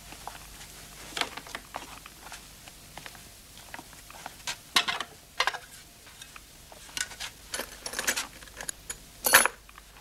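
Crockery and cutlery clinking and knocking as dishes are set down on a table: a scatter of short clinks, the loudest near the end.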